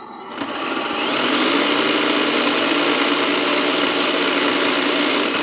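Tamiya RC timber truck's electric drivetrain running in high gear, its rear two driven axles spinning freely off the ground. The running noise builds over about the first second, holds steady, and falls away near the end.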